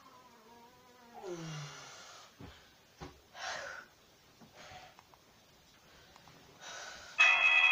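A man's drawn-out groan, falling in pitch, then several heavy, hissing breaths with a couple of sharp knocks between them. Loud music cuts in suddenly near the end.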